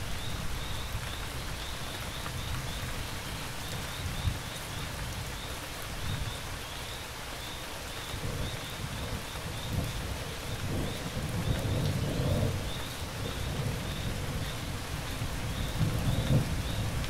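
Steady rain falling, with crickets chirping in an even, repeating rhythm. Low rolls of thunder swell from about halfway through and rumble again near the end.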